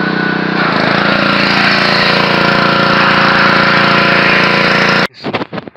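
Power wrench undoing a bolt: one loud, continuous run of about five seconds whose pitch drops slightly within the first second as it bites, then stops abruptly, followed by a few short sharp clicks.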